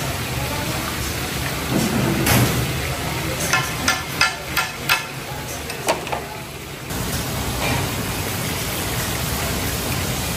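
A run of about seven sharp knocks a few tenths of a second apart, over a steady hissing background noise.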